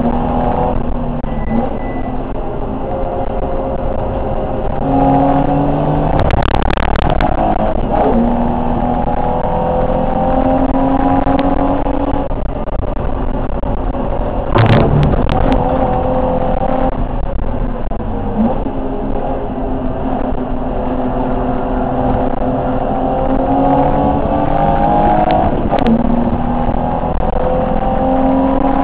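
BMW E30 325 race car's straight-six engine heard from inside the cabin at racing speed, the revs climbing and dropping again and again through gear changes. A few sharp knocks cut through, about six seconds in, halfway through and near the end.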